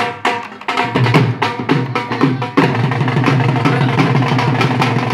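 Punjabi dhol drums beating a quick bhangra rhythm of sharp, evenly spaced strokes. About halfway through, the strokes blur into a denser, steadier sound.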